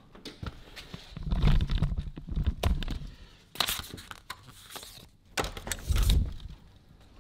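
Paper envelope rustling in the hand, with clicks and thumps from a hotel room door's card lock and metal lever handle being worked. The heavier thumps come about a second in and again near the end.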